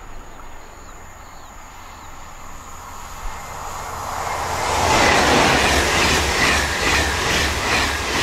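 Double-deck TGV high-speed train approaching and passing at speed. A rushing noise builds and becomes loud about five seconds in, with a regular pulse about twice a second as the carriages go by and a faint high whine.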